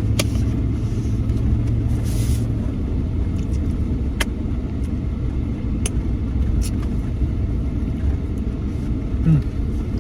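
Steady low road and engine rumble inside a 2011 Ram 1500 pickup's cabin while driving, with a few faint clicks.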